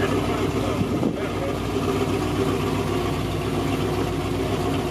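Pontiac G8 GT's V8 engine running at a steady speed.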